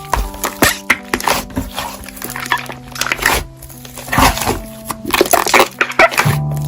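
Background music with a held melody, over repeated short crackling and squishing clicks of slime being pressed and poked.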